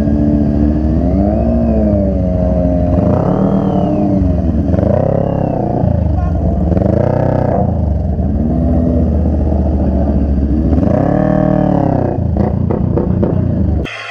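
Motorcycle engine running with repeated throttle revs, its pitch rising and falling about every two seconds over a steady low exhaust rumble. It cuts off suddenly near the end.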